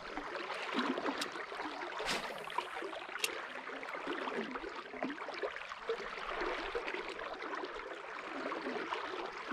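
Steady rush of flowing river water, with a few sharp clicks about one, two and three seconds in.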